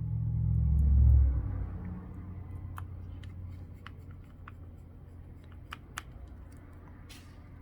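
A low rumble for about the first second and a half, then a scatter of faint, sharp clicks and ticks from small screws and a precision screwdriver being worked into a smartphone's frame.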